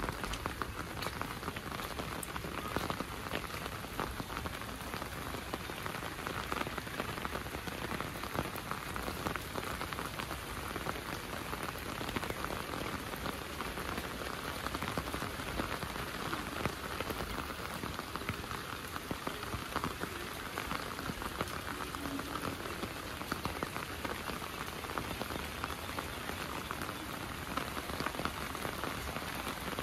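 Steady rain falling, with many individual drops ticking sharply on nearby surfaces.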